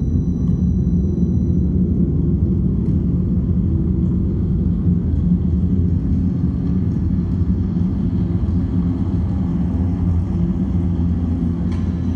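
Electronic tape part of a piece for soprano and electronics: a loud, steady, dense low rumble. Faint thin high tones sit above it, and one of them stops about two seconds in.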